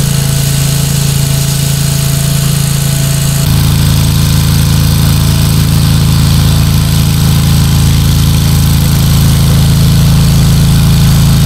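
Engine running steadily at an even pitch; about three and a half seconds in its tone drops lower and grows a little louder.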